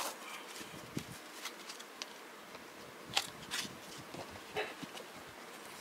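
Trading cards and plastic card sleeves being handled: faint light rustling with a few scattered small clicks.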